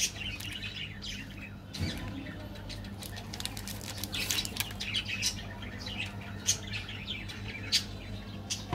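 A Crunch chocolate bar's plastic wrapper crinkling and crackling as it is handled and torn open, loudest a few seconds in. Birds chirp in the background throughout.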